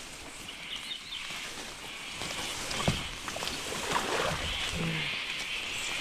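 Swamp water sloshing and splashing around someone wading through it, with rain falling and a few small knocks.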